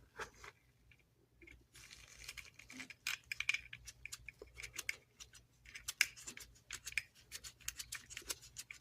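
Faint, irregular metallic clicks and scrapes of a 1979 Zippo Handilite table lighter being put back together by hand, its insert fitted back into the case. They start about a second and a half in and come in quick uneven strokes.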